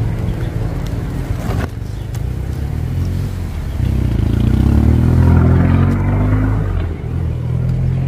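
Motor vehicle engine on a nearby road, rising in pitch as it accelerates past about halfway through, over a steady low rumble.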